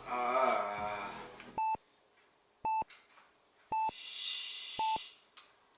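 A short electronic beep repeating steadily about once a second, starting about a second and a half in. It opens with a drawn-out wavering vocal sound, and a breathy hiss comes between two of the beeps.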